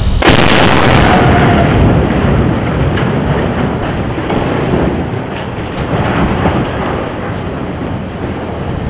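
Controlled demolition blast from the precision cutting charges on the collapsed bridge's steel truss: a sudden loud explosion about a quarter second in, followed by a long rolling rumble that slowly fades.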